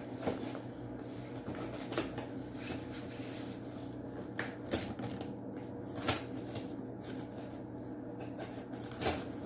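Cardboard shipping box being handled and opened: scattered short rustles and clicks, about half a dozen, over a steady low hum.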